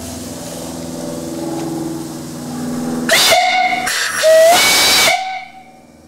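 Antique steam whistle on a steam boiler at about 90 psi, blown in two blasts close together about three seconds in, with steam hissing through it. The second blast is longer and louder, and its pitch slides up as it opens. The whistle cuts off after about two seconds in all.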